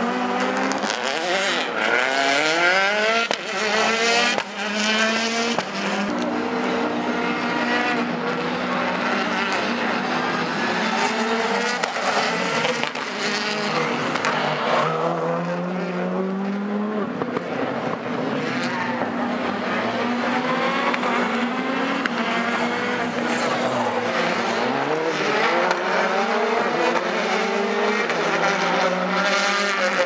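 Hyundai i20 WRC rally car's 1.6-litre turbocharged four-cylinder engine at racing speed on a circuit. It revs up hard through the gears again and again, the pitch climbing in each gear and dropping back at the shifts and on braking into corners.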